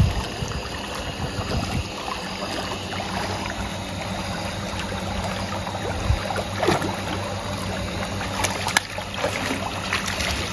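A golden retriever swimming in a pool: steady splashing and lapping of water, with a few sharper splashes as it reaches the pool steps and climbs out near the end.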